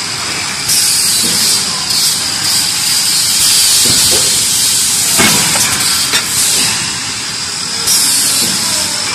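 DB-470PP plastic thermoforming machine running: compressed air hisses in long spells, starting under a second in and again near the end, with a few short knocks from the mechanism in between.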